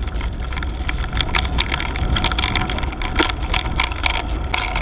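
Wind buffeting the microphone of a camera on a moving road bike: a steady rush and low rumble, with tyre and road noise and scattered short clicks and knocks.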